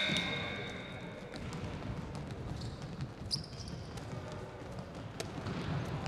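Handball game sounds in a large echoing sports hall: a handball bouncing and slapping on the court and hands, with scattered thuds and a brief shoe squeak near the middle. A high whistle tone fades out within the first second.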